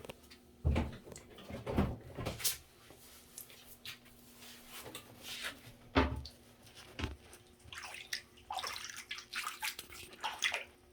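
Bathwater sloshing and splashing in irregular bursts as a small dog shifts about in a shallow tub, with a faint steady hum underneath.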